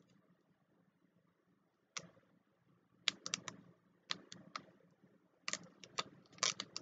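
Sharp, irregular clicks and crackles as a vinyl decal is handled and eased off its application tape over a clear plastic dome. About the first two seconds are quiet, then the clicks come in small clusters, the loudest near the end.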